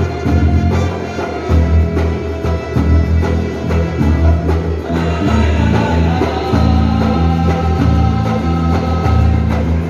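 Background music with a steady bass beat and sustained melodic notes.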